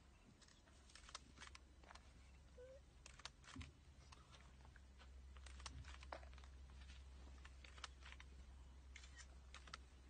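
Near silence: a faint steady low hum with scattered soft clicks and crackles.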